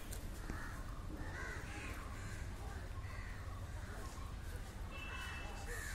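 Crows cawing on and off over a steady low rumble, with a short high call about five seconds in.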